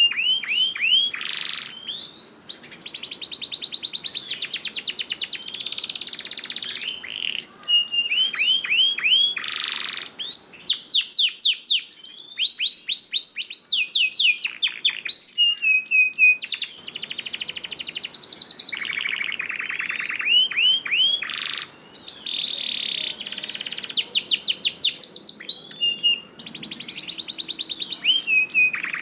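Domestic canary singing a long, continuous song of fast trills, rapid repeated notes and sweeping whistled glides. The song changes phrase every second or two.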